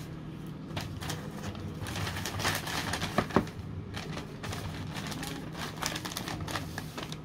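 Brown paper bag rustling and crinkling as it is handled on a stone counter, with scattered light clicks and knocks and two sharp ticks a little past three seconds in, over a steady low hum.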